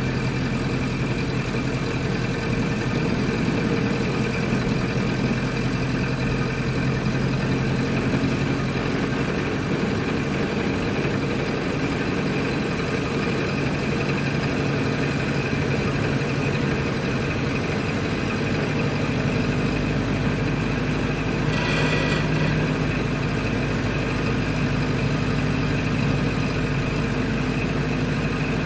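Ford Model A's four-cylinder engine running steadily while the car is driven, its note shifting a little about two-thirds of the way through. A brief high-pitched tone sounds over it shortly after.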